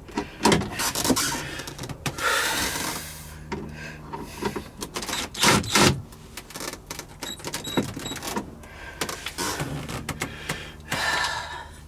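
Cordless drill/driver motor whirring in two short runs, with knocks and clicks of the tool against the screws and the box. A Phillips bit is in a driver meant for number 2 square-drive screws, so it spins without taking hold.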